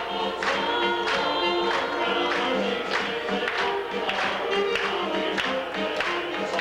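Gospel vocal group singing in harmony to instrumental accompaniment with a steady beat.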